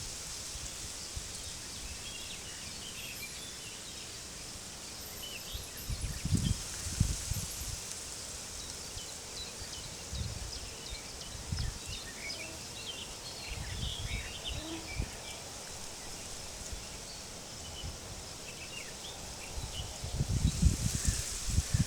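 Wind blowing through a wheat field with many small birds chirping. The wind comes in low rumbling gusts several times, the strongest near the end, over a steady high hiss.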